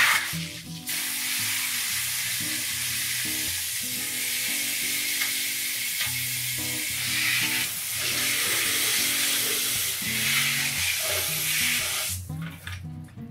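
Steady hiss of water splashing as soapy rinse water is poured out of a plastic bucket into a metal stock tank, with soft background music underneath. The hiss stops about a second before the end.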